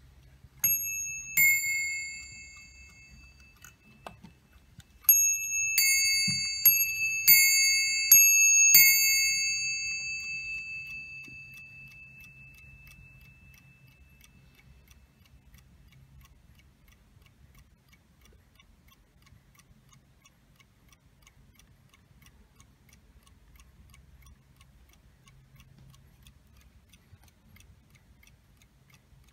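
Warmink 8-day bracket clock striking on its brass bell: two strokes, then a run of about six more from about five seconds in, in two alternating notes, ringing out over several seconds. After that only the faint, even ticking of the movement remains.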